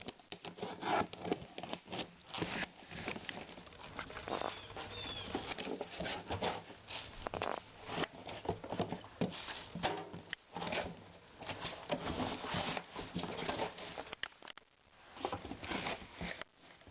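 Cardboard box being opened and its packing handled: an irregular run of rustling, scraping and crinkling, with a short pause near the end.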